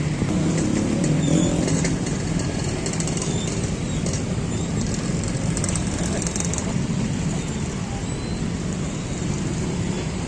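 A motor vehicle's engine running steadily among street traffic, with faint voices and light clicking and clattering in the middle of the stretch.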